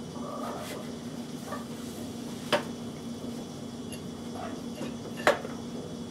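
Two sharp clicks of plastic and metal parts knocking together, about three seconds apart, as a small engine with its plastic fuel tank is handled and fitted onto a mower frame. A steady low hum runs underneath.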